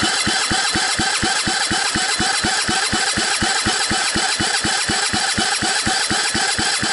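125cc single-cylinder ATV engine cranked over by its electric starter with a compression gauge screwed into the spark-plug hole, so it turns without firing: an even beat of about six compression strokes a second over the starter's whine. This is a compression test, the gauge reading just under 90 psi.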